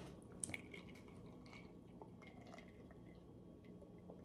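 Near silence: quiet room tone with a few faint short clicks.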